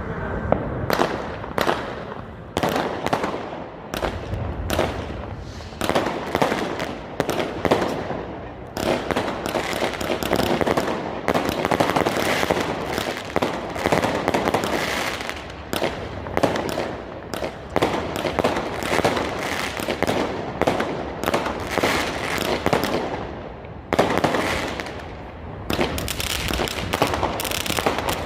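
Fireworks going off: a dense, continuous run of bangs and crackling, several reports a second, easing off briefly now and then.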